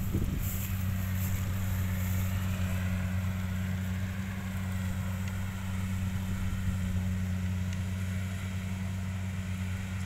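Engine of a tracked rice-transport carrier running steadily with an even, low hum.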